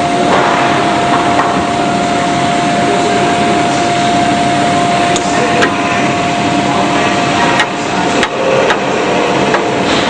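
Machine tools of an automated robotic workcell running: a steady, loud noise with a held whine, and a few sharp clicks and knocks in the second half.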